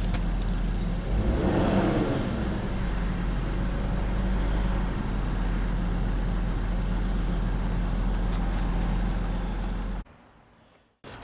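1995 BMW 525i straight-six idling steadily with its airflow meter disconnected, a little high at about 850 rpm against a normal 750. The unsteady idle comes from a vacuum leak through a cracked air intake hose. The sound cuts off near the end.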